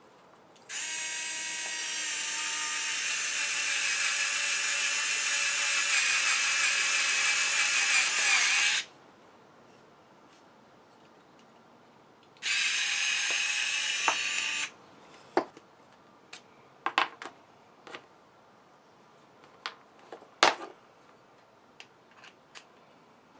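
Skil 4-volt cordless screwdriver motor running with a steady whine for about eight seconds, its pitch sagging just before it stops. It runs again briefly for about two seconds, then a few light clicks and knocks follow.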